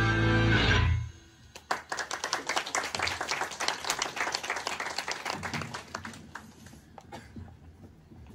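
A loud pop-song backing track ends abruptly about a second in, followed by an audience clapping and applauding, which thins out and fades over the next few seconds.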